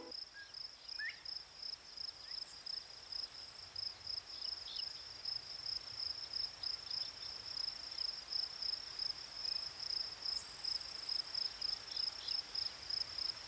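Cricket chirping: a steady high-pitched chirp pulsing a few times a second.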